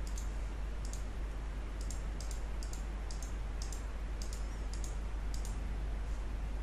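Computer mouse button clicked repeatedly, about a dozen short sharp clicks at an irregular pace, several in quick pairs, over a steady low electrical hum.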